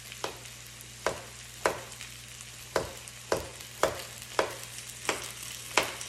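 A ceramic knife slicing through a carrot onto a flexible plastic cutting board, about nine sharp knocks at roughly half-second intervals. Underneath, a steady sizzle of chicken frying in a hot pan.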